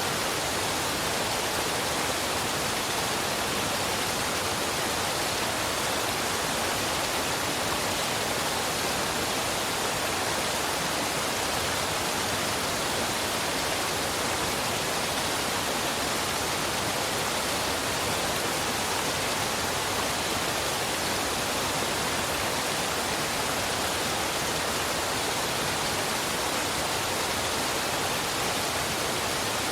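Waterfall and river water rushing, a steady, even hiss with no breaks or changes.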